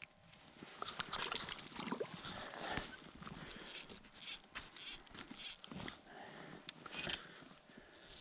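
Close rustling and scratching as a chest-mounted camera rubs against a winter jacket while an ice angler handles a fish and his rod: a string of short scratchy sounds, several about half a second apart in the middle.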